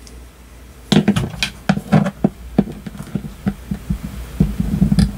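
A fine screwdriver clicking and knocking against a die-cast metal model truck cab while prying at the small plastic pins that hold the window glass. The clicks are irregular, several a second, and start about a second in.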